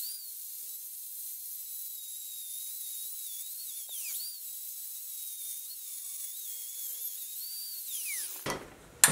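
Angle grinder with a thin cut-off disc cutting through steel bar stock. A steady high-pitched whine dips in pitch a few times during the cut, then falls away as the grinder is switched off and spins down near the end. A loud knock follows right at the end.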